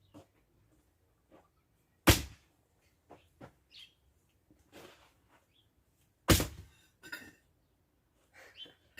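Pieces of firewood being dropped and knocked into a wood-fired stove: two loud, sharp knocks about four seconds apart, with lighter knocks in between. A short bird chirp is heard once in the middle.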